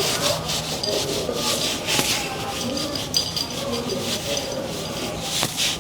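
Rapid, repeated rubbing strokes on a cat's fur during grooming, in irregular runs with a couple of sharp clicks.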